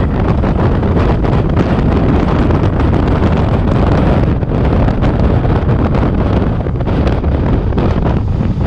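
Wind buffeting the microphone of a camera on a motorcycle riding at road speed: a loud, steady rush heaviest in the low end.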